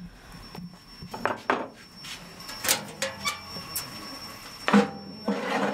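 Shallow metal pie pan clinking and knocking as an Ossetian pie is handled in it, with soft pats of hands on the dough early on and a louder metal knock near the end.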